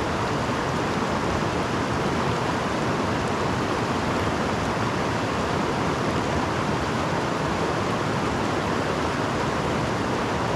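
Creek water rushing, a steady even rush with no breaks.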